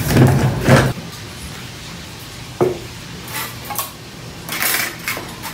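Plates and cutlery clinking and clattering as dishes are gathered and stacked off a dining table: a sharp knock with a short ring a little after midway, then two quick clusters of clinks. A couple of louder bumps and rustles come in the first second.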